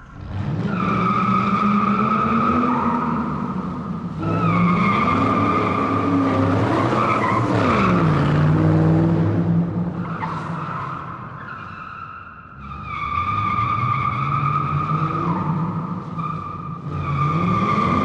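Car tyres squealing in a series of long skids, each a steady high screech lasting a few seconds, with short breaks between them. Beneath the squeal the car's engine note rises and falls in pitch.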